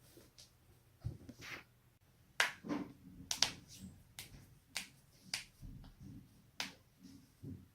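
Human joints being cracked: a series of sharp pops, about a dozen over several seconds, some coming in quick pairs.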